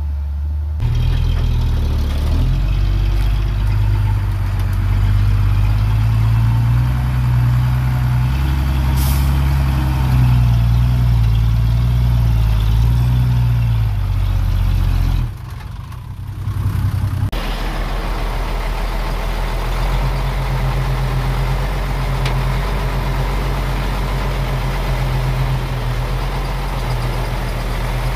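Heavy diesel engines of earthmoving machinery running with a deep, steady rumble. The sound changes abruptly about a second in, and again about halfway through, where it briefly drops before the rumble returns.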